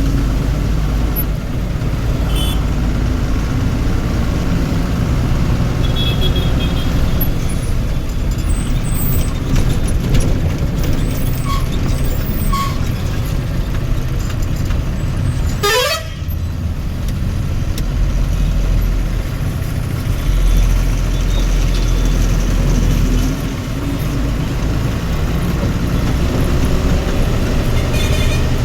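Vehicle engine running steadily in slow highway traffic, with short horn toots at intervals. About halfway through there is one quick rising tone.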